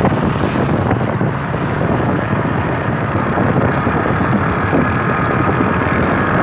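A vehicle moving along a road, with steady engine and road noise and wind buffeting the microphone.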